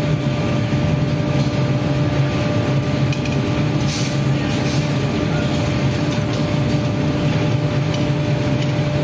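Steady roar of a glass bangle furnace's fire and blower, with a constant mechanical hum under it. A short hiss rises above it about four seconds in.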